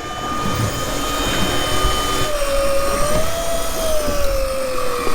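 Electric deep-drop fishing reel winding in line with a heavy fish on: a steady motor whine over a low rumble, joined about two seconds in by a lower whine that rises and then sags slightly as the load changes.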